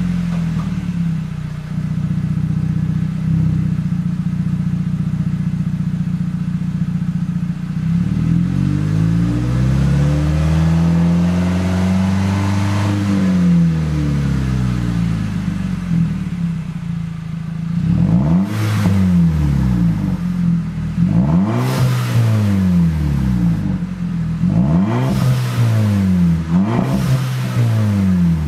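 Volkswagen MKV GTI's turbocharged four-cylinder, heard at the tailpipes through an aftermarket Manzo cat-back exhaust, idling steadily and then revved with the car standing still. About eight seconds in it is taken up in one slow rise and fall, and in the last ten seconds there are several quick blips of the throttle.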